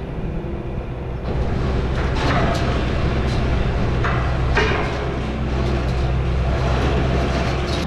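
An engine running steadily at a low idle, with a few short bangs and clanks over it, about one, two and four and a half seconds in.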